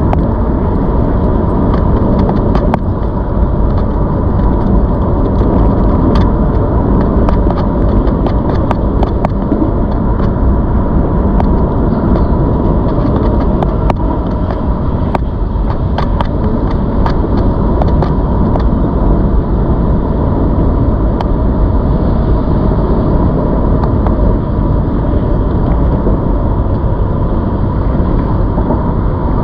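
Steady wind rush and rolling noise from riding a ZOOZ electric bike, with a thin steady whine and scattered light clicks and rattles.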